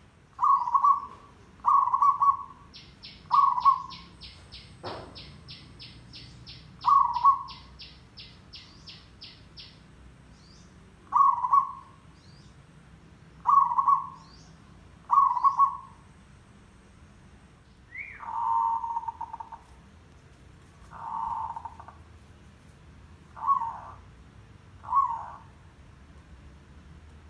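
Zebra dove (merbok) giving territorial challenge coos. It starts with a string of short coos every second and a half or so; from about two-thirds of the way through they turn into longer, rougher, rattling coos. A few seconds in, a fast run of high ticks lasts about seven seconds, and a single thump comes near the fifth second.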